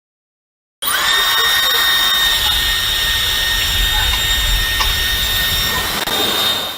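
Dyson Supersonic hair dryer switched on about a second in and blowing steadily: a rush of air with a high, steady whine, fading out near the end.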